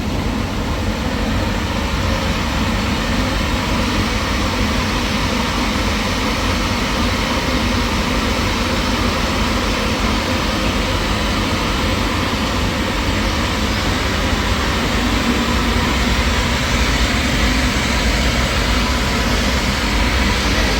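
Heavy machinery running steadily, a loud unbroken mechanical drone that does not change.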